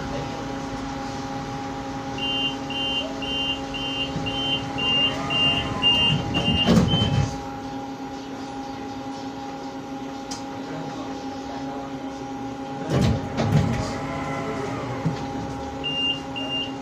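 Tram standing at a stop, its on-board equipment humming steadily. A door warning signal beeps about twice a second for some five seconds and ends in heavy clunks of the doors. There is another set of clunks later, and the beeping starts again near the end.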